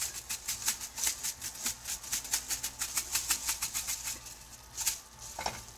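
Dried chili flakes being shaken out of a jar over a frying pan of ground meat: a quick, even rattle of about six shakes a second for a few seconds, then a couple of louder single knocks near the end.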